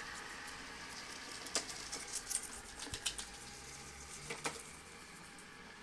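Kitfort KT-577 robot vacuum running in wet-cleaning mode: a steady motor hum with a cluster of sharp clicks and taps in the middle.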